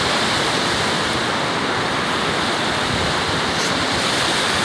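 Ocean surf breaking, a steady rushing wash of water with no letup.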